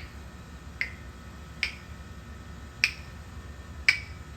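African grey parrot making sharp clicking noises, five single clicks about a second apart.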